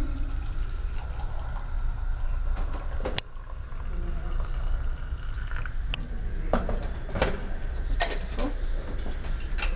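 Hot water poured from a stainless-steel electric kettle into a small porcelain teapot, followed by several light clinks and knocks of porcelain teaware being handled.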